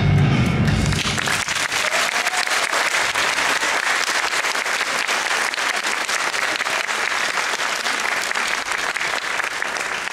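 Dance music stops about a second in, and an audience breaks into steady applause, many hands clapping.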